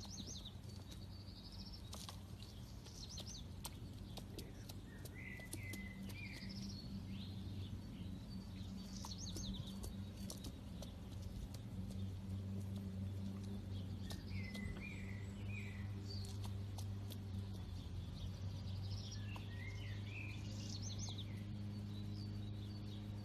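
A bird chirping in short phrases of quick chirps every few seconds, over a steady low hum and scattered faint clicks.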